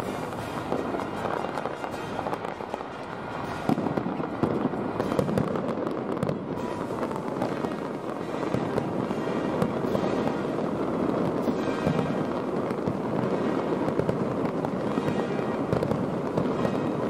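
Fireworks display going off in quick succession: a dense, continuous crackle of bursts that gets louder about four seconds in.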